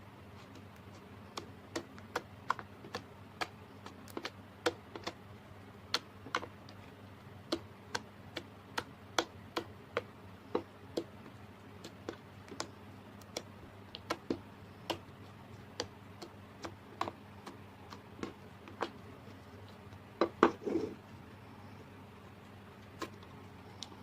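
Slime being squeezed and pressed by hand, giving off irregular sharp clicks and pops about twice a second as air pockets burst. A quick cluster of louder pops comes near the end.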